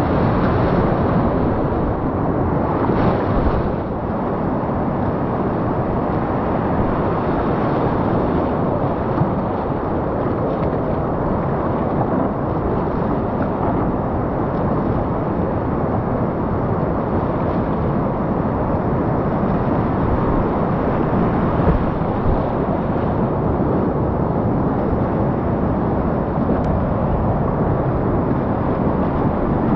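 Whitewater rapids rushing around a kayak, picked up close on a helmet camera: a deep, steady rush of water.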